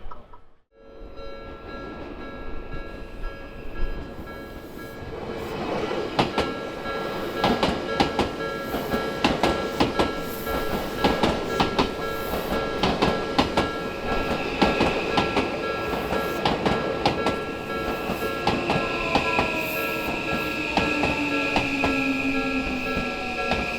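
Odakyu electric train running over a level crossing, its wheels clattering in quick strokes over the rail joints, while the crossing signal sounds steady tones. About halfway through a high squeal comes in, and near the end a whine falls in pitch.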